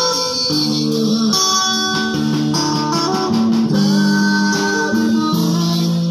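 Electric guitar played through a portable amplifier speaker, picking out a melody in sustained notes, with a drum kit and cymbals keeping time behind it.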